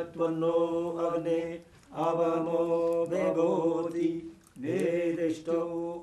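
Hindu mantras chanted for a havan fire offering, sung in long phrases on steady, held pitches, with two short breaths about 1.7 and 4.5 seconds in.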